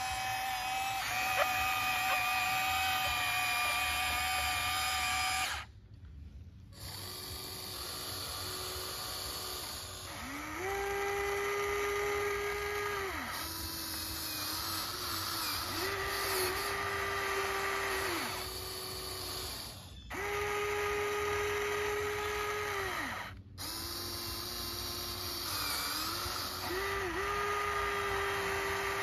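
Electric motors of a Huina radio-controlled excavator whining as it swings its arm and digs into a dirt mound. The sound comes as a string of whines a few seconds long, each rising as a move starts and dropping away as it stops.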